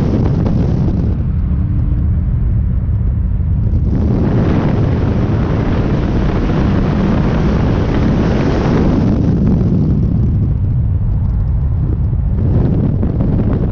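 Cars driving at highway speed, heard as a loud, steady low rumble with wind rushing on the microphone. The hiss eases for a few seconds about a second in and again about nine seconds in.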